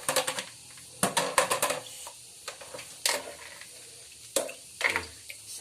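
Ripe noni fruits being handled in their washing water: irregular short bursts of splashing and rustling, four or five in all, with quiet gaps between.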